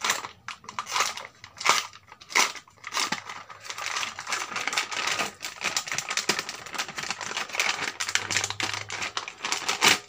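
A sealed plastic packet being slit with a knife and pulled open by hand, with continuous crinkling and rustling full of small sharp crackles.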